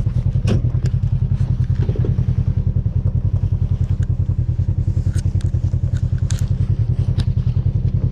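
Small engine running steadily with a fast, even throb, with scattered knocks and clatter over it.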